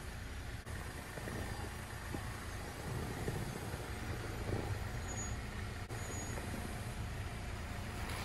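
Jeep Wrangler Rubicon engine running at low, steady revs as it crawls down a steep dirt slope, with a few faint crackles from the tyres rolling over soil.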